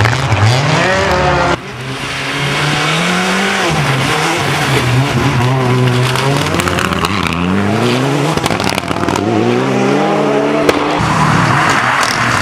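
Rally car engines, among them Mitsubishi Lancer Evolutions, revving hard through the gears as several cars pass in turn. The pitch climbs in each gear and drops at each change, with a single sharp pop near the end.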